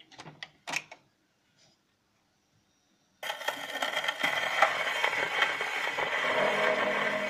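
A few light clicks and knocks, then about three seconds in the needle of a wind-up acoustic gramophone drops onto a 78 rpm shellac record: a sudden, steady hiss and crackle of surface noise. The first notes of the music begin to come through near the end.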